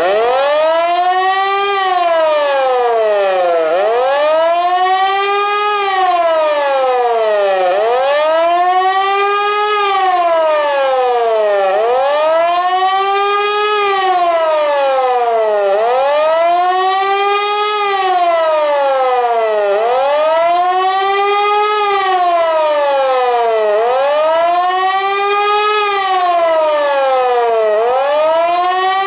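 HLS 273 pneumatic high-performance siren sounding the German civil-defence 'Warnung' signal in a test. It starts suddenly and gives a loud wail that rises and falls in pitch about every four seconds.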